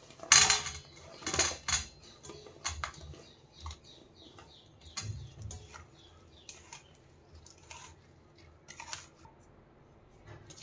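Cut raw mango pieces being tipped into a vessel of mustard-oil spice mix and stirred in: irregular knocks, clatters and scrapes, loudest in the first couple of seconds, then lighter stirring.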